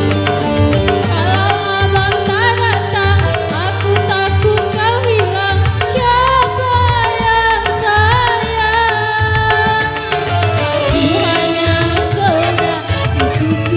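Dangdut koplo music: a wavering, ornamented melody line over a steady, driving drum beat and heavy bass.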